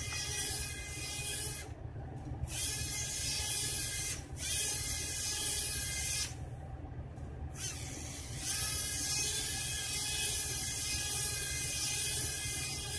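Small electric motor and propeller of a homemade egg-crate model biplane, running with a steady buzzing whine. The whine drops out briefly twice, about two seconds in and again around six to seven seconds, while a low hum carries on underneath.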